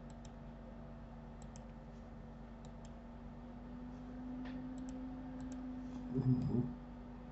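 Light computer mouse clicks, mostly in close pairs, scattered through, over a steady low electrical hum. A short low sound near the end is the loudest moment.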